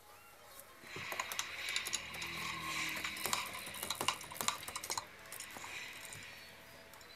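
Ratchet wrench with a 3/4-inch socket on an extension, making quick metallic clicks as it snugs the nuts onto the tower base-plate studs. The clicking starts about a second in and dies away after about five seconds.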